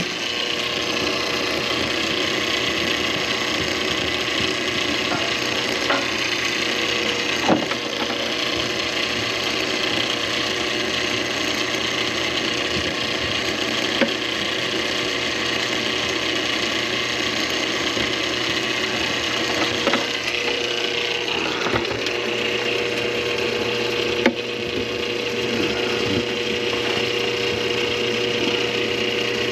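Motorized drain-cleaning machine running steadily, its cable turning and rattling in a grease-clogged drain line, with a steady motor hum and a few sharp clicks.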